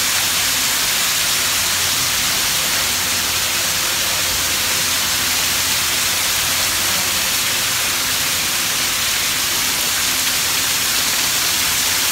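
A small waterfall splashing down over rocks in several cascades: a steady rush of falling water.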